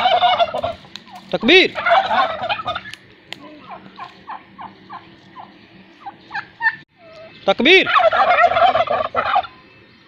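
A flock of domestic turkey toms gobbling in a loud chorus in answer to a man's shouted call. A shout comes about a second and a half in and the gobbling follows at once; after a stretch of quieter short calls, a second shout about eight seconds in sets off another gobbling chorus.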